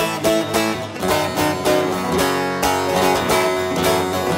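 Bağlama (long-necked Turkish saz) played instrumentally with quick, even strummed and picked strokes, a türkü melody.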